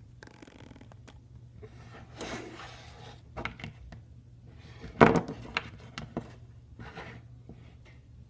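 Plastic toy figures being handled and moved about: rustling and scraping with scattered clicks and knocks, the loudest knock about five seconds in.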